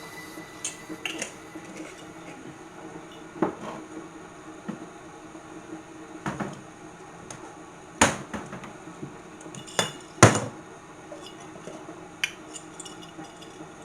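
Scattered clinks and knocks of utensils against a cooking pot, the sharpest two about two seconds apart a little after the middle.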